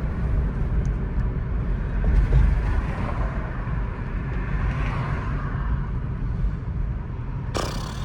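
Steady low rumble of road and wind noise in a moving Tesla, with no engine note. A brief harsh burst of noise comes near the end.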